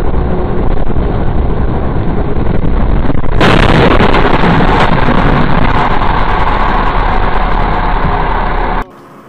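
Loud, dense vehicle noise with no clear pitch. It turns abruptly brighter about three seconds in and cuts off sharply near the end.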